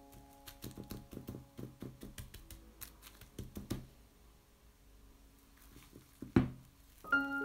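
Plastic cling film crinkling in a run of short crackles as a hand presses it down onto soft cream in a glass dish. About six seconds in comes one sharp knock as the glass dish is gripped and moved on the table.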